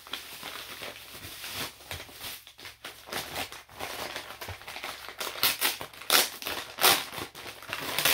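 Paper packaging crinkling and rustling in irregular bursts as a parcel is unwrapped by hand, busier and louder in the second half.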